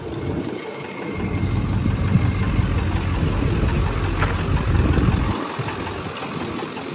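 Ford F-250 Super Duty pickup truck idling close by, a low, uneven rumble with wind buffeting the microphone. The rumble drops away suddenly a little over five seconds in.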